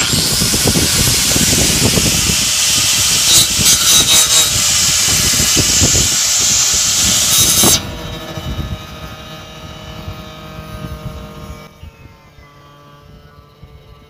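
Angle grinder with a thin cut-off disc cutting through the steel engine mount on a car's chassis, a loud, harsh grinding. A little past halfway the sound drops sharply and carries on much fainter as a steady whine.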